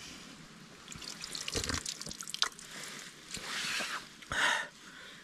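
Hands dipping into a shallow trickle of spring water, with small splashes and drips in several short bursts, the loudest about four seconds in.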